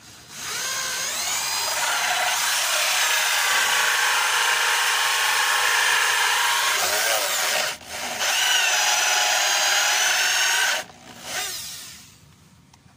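Electric drill running a hole saw into a wooden board, its motor whine dipping and recovering as the teeth bite. It pauses briefly twice, then stops about eleven seconds in, gives one short last burst and winds down.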